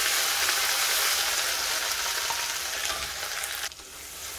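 Ground garlic paste sizzling as it hits hot oil in a stainless steel kadai, a steady hiss that drops off suddenly near the end.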